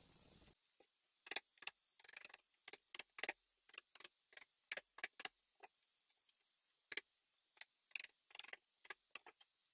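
Mallet striking a chisel to chop a mortise in a maple slab: a string of sharp knocks at an uneven pace, roughly two a second, some coming in quick pairs.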